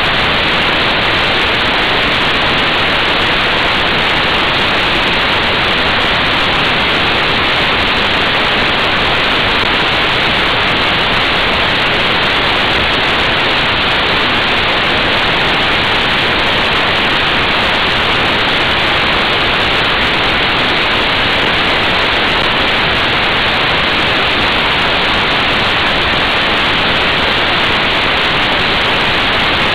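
Steady, loud rush of wind noise on a motorcycle-mounted action camera's microphone at motorway speed, with no engine note standing out.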